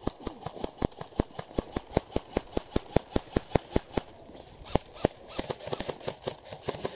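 Airsoft rifles firing: a rapid, fairly even string of sharp clacking shots about six a second, turning in the second half into uneven, overlapping shots from several guns.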